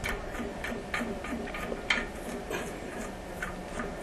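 Scattered light clicks and taps of a tool and metal parts being worked while loosening the toilet's tank-to-bowl bolts, with the sharpest click about two seconds in.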